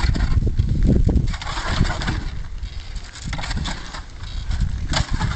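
Wind rumbling on the microphone, with a few short bursts of scraping and rustling.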